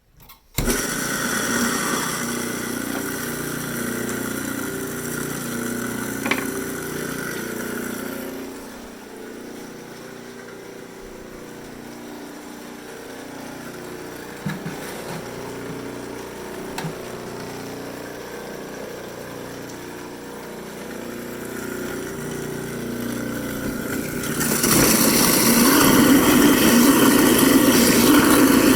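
Whizbang apple grinder, a garbage-disposal-style cutter driven by an electric motor, starting abruptly about half a second in and running really loud while grinding apples. The noise eases off for a long stretch in the middle and rises again, louder still, near the end.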